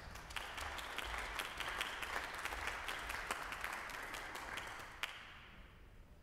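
Applause from a small, scattered gathering: a patter of separate hand claps that dies away about five seconds in.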